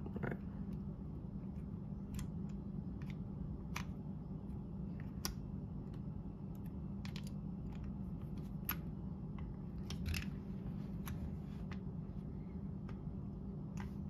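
Small, irregular metal clicks and ticks from the brass parts of an opened Emtek mortise lock being moved and handled by hand, over a steady low hum.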